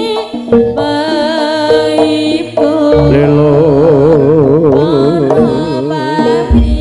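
Live jaranan music from a Javanese ensemble, amplified: held pitched notes with a melody line that wavers with wide vibrato through the middle, and low drum beats near the end.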